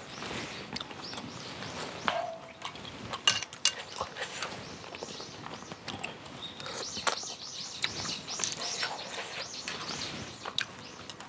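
Close-up eating sounds of clam kalguksu: utensils clicking sharply against the pan and shells between bites.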